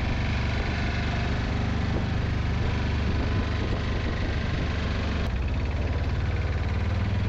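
An engine running at a steady speed, a low even drone.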